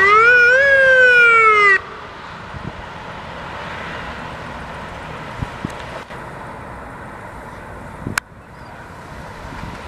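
Electronic emergency-vehicle siren giving one wail that rises and then falls for about two seconds before cutting off abruptly. Steady road and engine noise follows, with a single click near the end.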